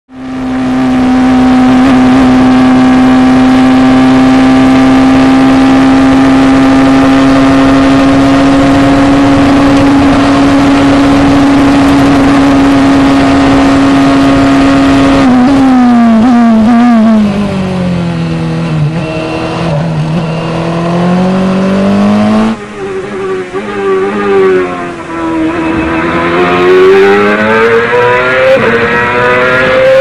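Open-wheel racing car engines heard onboard. For about the first fifteen seconds a single high engine note is held nearly steady. After a sudden change, the revs drop through downshifts, and after a cut another engine climbs and falls in pitch as the car accelerates and brakes.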